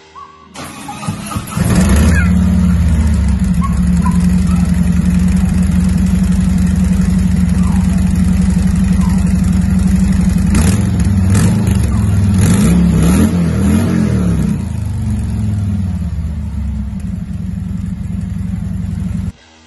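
Stock exhaust of a 2018 Harley-Davidson Freewheeler trike, with its Milwaukee-Eight 114 V-twin starting up about two seconds in and idling. It is revved a few times around ten to fourteen seconds in, then settles back to idle.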